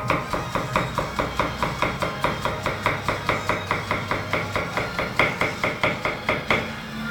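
Rapid, even knife chopping on a cutting board, about four strokes a second, with a short ring on each stroke; it stops about six and a half seconds in.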